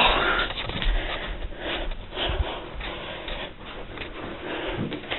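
Handling noise from a hand-held camera being picked up and carried: a loud rush of rubbing against the microphone at the start, then uneven scraping and rustling with small knocks.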